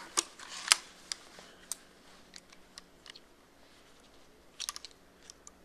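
Cobra crossbow pistol being handled and readied for a shot: two sharp clicks in the first second, then scattered light clicks and a short cluster of clicks near the end, with no shot fired.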